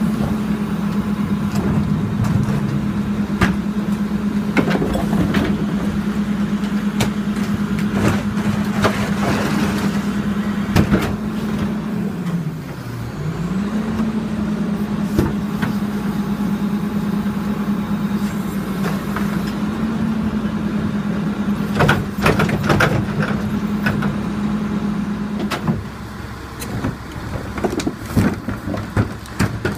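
The diesel engine of a Crane Carrier rear-loading garbage truck runs at raised revs while the Leach body's cart tippers lift and dump wheeled trash carts. The revs drop and climb back about halfway through, then drop again near the end. Over it come repeated knocks and bangs of carts striking the tipper and garbage falling into the hopper.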